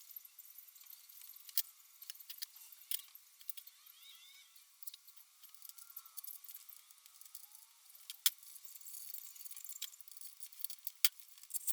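Scattered light clicks and clinks of small parts being handled, a few sharper ones standing out, over a faint hiss.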